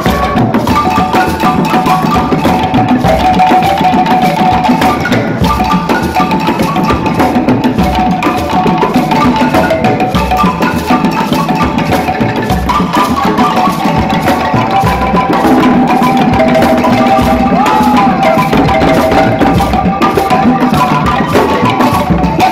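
Xylophone music played over drums and other percussion, with quick runs of pitched wooden notes above a dense, steady beat.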